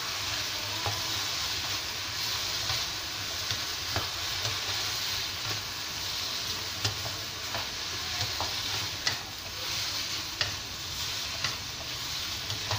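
Yellow noodles, prawns and sauce sizzling in a hot wok as they are stirred and tossed with a spatula. Scattered sharp clicks and scrapes come from the spatula against the pan.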